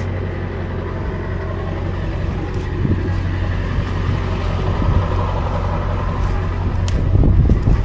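An engine idling steadily, with a few low knocks and a brief rise in level near the end.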